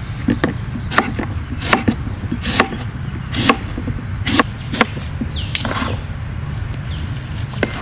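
Cleaver slicing through green mango and knocking on a wooden cutting board: sharp knocks about once a second, unevenly spaced.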